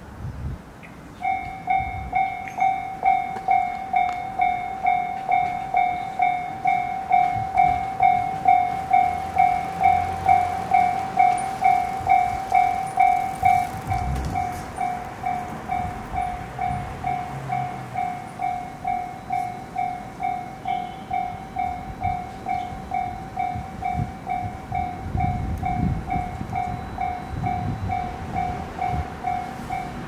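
Japanese railway level-crossing warning bell starting about a second in and ringing a steady, repeated two-tone 'kan-kan' about twice a second, the signal that a train is approaching and the barriers are down.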